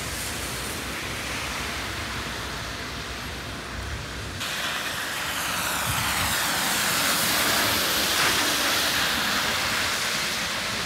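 A low engine rumble, then about four seconds in the sound changes abruptly to a bus passing on a wet road. Its tyre hiss and engine swell to a peak around eight seconds in and then ease off.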